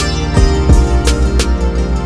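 Background music: plucked strings over a steady drone, with a regular beat of low drum strokes.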